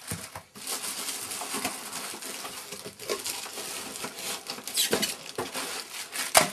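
Packaging being handled: plastic and cardboard rustling and scraping as heater parts are pulled out of their box, with small clicks throughout and one sharp knock near the end.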